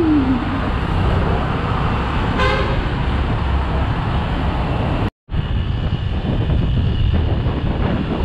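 Motorcycle engine and road rumble while riding slowly in city traffic, with a short vehicle horn toot about two and a half seconds in. Just past halfway the sound cuts out for an instant.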